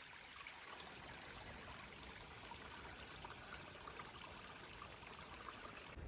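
Faint steady hiss, close to near silence, with a few tiny ticks.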